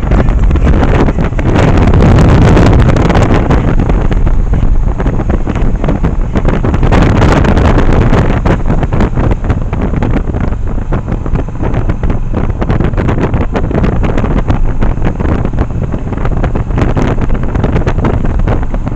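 Yamaha 1100 motorcycle under way, its engine mostly buried under heavy wind buffeting on the microphone.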